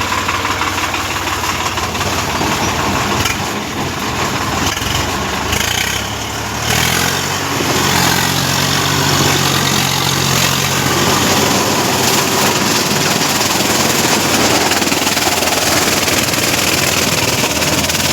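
Swaraj 744 FE tractor's three-cylinder diesel engine running steadily, its note rising and settling at a higher, even speed about seven seconds in.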